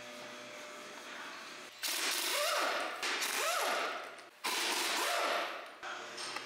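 Impact wrench hammering on the gland end of a large hydraulic cylinder in three bursts of about a second each, starting about two seconds in, its pitch rising and falling as it spins up and down. Steady shop noise comes before the first burst.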